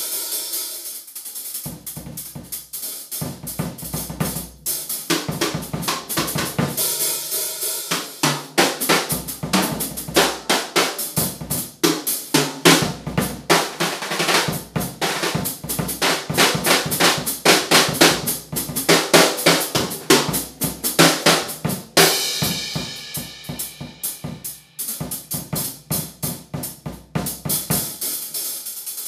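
Acoustic drum kit played with sticks in a fast improvised groove, with snare, bass drum, hi-hat and cymbals. Bass drum beats come in a couple of seconds in, and about three-quarters of the way through there is a short stretch of cymbal wash.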